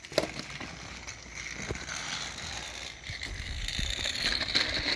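Battery-powered Thomas TrackMaster toy engine running along plastic track: a steady motor-and-gear whir that grows louder toward the end, with a few sharp clicks.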